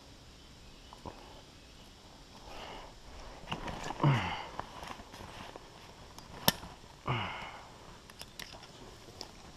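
Footsteps and rustling in dry leaf litter, with a few sharp clicks of handled gear and two short grunts from a man, each falling in pitch, about four and seven seconds in.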